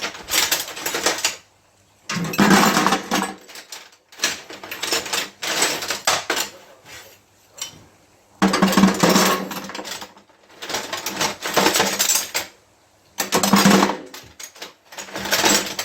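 Pieces of half-inch copper water pipe clattering and jingling into a metal container, in bursts of one to two seconds with short pauses between.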